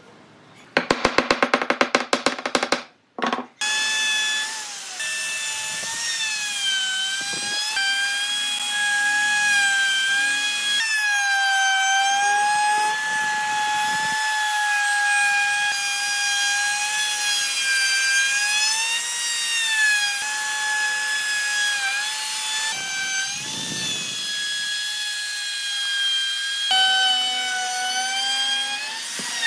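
Power tool running: a burst of rapid clicking for about two seconds, then a steady motor whine whose pitch dips and recovers now and then, as when cutting loads the motor.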